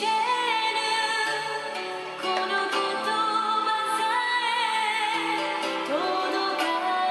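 Background music: a continuous melodic tune with a wavering lead line over sustained notes.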